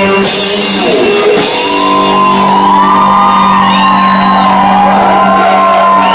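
Live rock band: electric lead guitar playing bending, gliding notes over a steadily held low note, with two cymbal crashes, one just after the start and one about a second and a half in.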